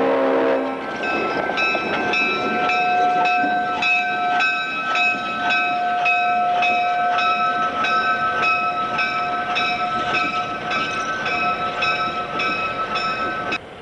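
A diesel locomotive's horn chord ends just under a second in. Then a railroad bell rings steadily, about two to three strikes a second, over the passing train's engine and wheel noise. The sound cuts off abruptly just before the end.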